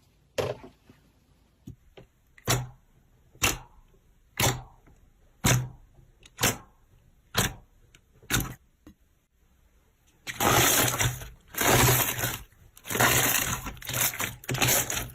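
Slime being pressed and poked: about eight short crackling pops, roughly one a second, then several seconds of longer crunching squeezes.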